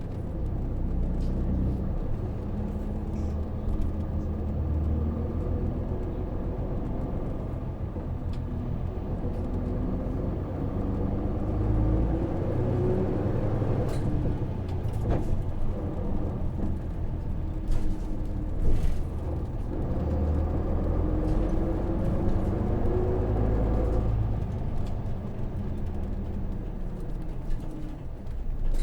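Interior running sound of a 2005 Hino KV234 city bus with a 6HK1 diesel engine, heard inside the cabin. The engine pitch climbs twice as the bus accelerates, then falls back, with a few brief rattles and clicks.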